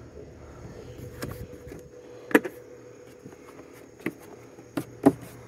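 A few sharp clicks and knocks of hands handling the plastic hood of a riding mower, the loudest about two seconds in and two more close together near the end, over a faint steady hum.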